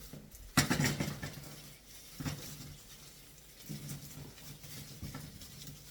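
Kitchen items being handled and set down while groceries are put away: a sharp knock a little over half a second in, a second knock about two seconds in, and lighter taps and shuffling after.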